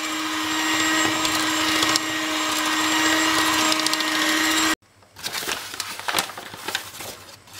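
Electric hand mixer running steadily, its beaters whisking a cake batter of butter, sugar and eggs, then switched off abruptly about two-thirds of the way in. A few light clicks and knocks follow.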